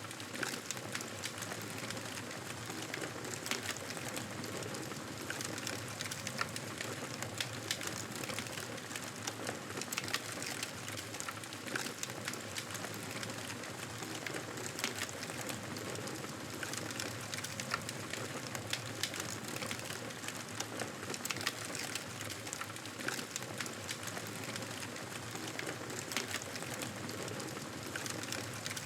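Fireplace fire crackling: a steady hiss with frequent, irregular sharp pops and snaps.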